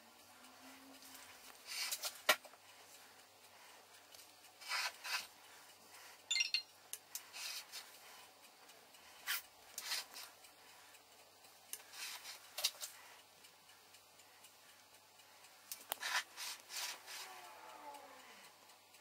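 Short, scattered rubbing and scraping sounds, about a dozen in all, from a glass mixing bowl being handled and tipped while mirror glaze is poured from it over a cake.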